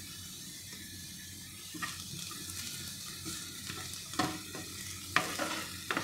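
Chopped onion, French beans and carrot sizzling in oil in a non-stick frying pan while a wooden spatula stirs them. From about two seconds in, the spatula scrapes and knocks against the pan, with the sharpest knocks about four and five seconds in.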